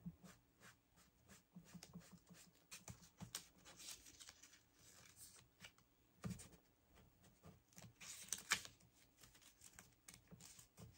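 Faint paper rustling and light dabbing taps as the edge of a paper pocket is inked with an ink pad, with a soft thump about six seconds in and a brief louder rustle about two seconds after it.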